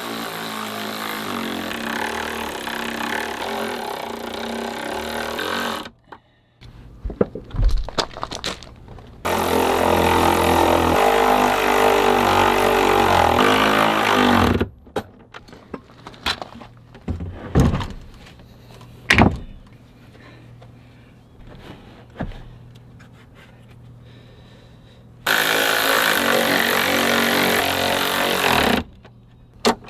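Cordless electric ratchet running bolts down on battery mounting brackets, in three long bursts of several seconds each. Between the bursts come sharp clicks and knocks of metal hardware being handled.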